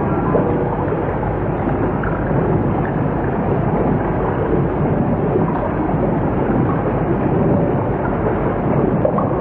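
A steady rushing, rumbling sound effect from a film soundtrack, an even noise with no clear tone that holds at the same level throughout.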